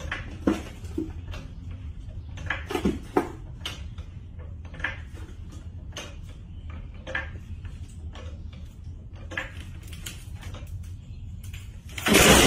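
Hydraulic floor jack being pumped by its long steel handle: a string of short metallic clinks and clanks at irregular spacing, roughly one a second, then a loud clattering bang near the end.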